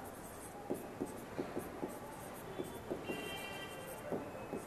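Stylus tapping and scratching on the glass of an interactive whiteboard as words are handwritten: a string of faint, irregular taps.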